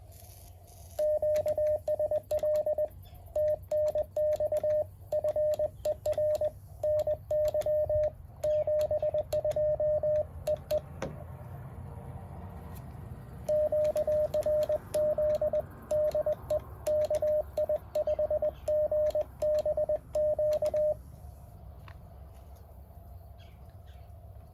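Morse code beeping from a Mountain Topper MTR-4B QRP transceiver: a steady tone of about 600 Hz keyed in quick dots and dashes. It runs for about ten seconds, pauses for about three, then sends about seven seconds more before stopping. A low hum and faint clicks sit underneath.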